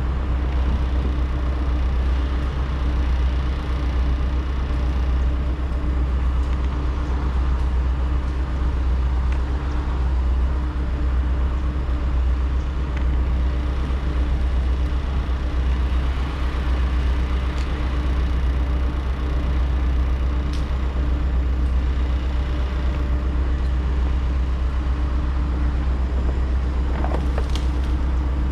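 An engine running steadily at idle, a low, even drone with no revving or cutting.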